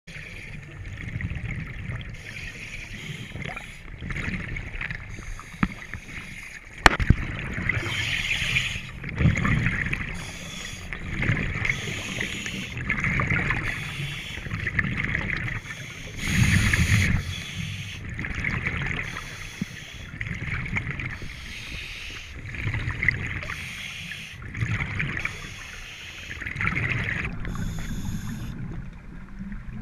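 Scuba diver breathing through a regulator underwater: a hiss on each inhalation and rumbling exhaust bubbles on each exhalation, coming in swells every couple of seconds. A single sharp knock about seven seconds in.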